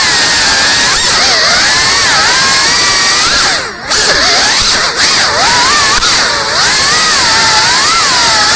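FPV drone's brushless motors whining, the pitch swooping up and down as the throttle changes, with a few brief dips in loudness near the middle.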